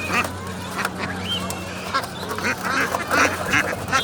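Caged birds calling, many short repeated calls overlapping, with a steady low hum underneath.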